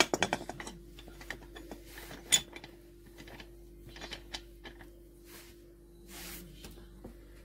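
Metal lid of an aluminium Afghan kazan pressure cooker being fitted and fastened: a quick rattle of metal clicks, then scattered single clinks and knocks, the loudest about two seconds in. A steady hum runs underneath.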